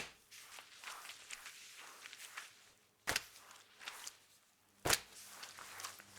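Wet mop swished back and forth across a floor in strokes, a wet swishing with a fine crackle. Two sharp slaps stand out, about three seconds and five seconds in.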